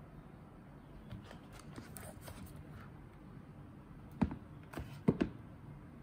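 Quiet handling noise: faint rustling, then a sharp knock a little over four seconds in and a quick double knock about a second later, like hard objects being tapped or set down on a table.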